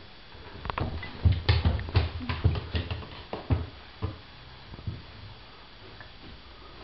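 A baby's hands and knees thumping on a wooden floor while crawling fast, a quick run of soft slaps about three a second that slows to a few single thumps and stops about five seconds in.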